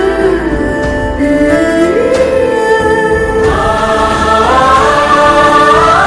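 Background music: a choir singing long held notes over instrumental accompaniment, swelling fuller about halfway through.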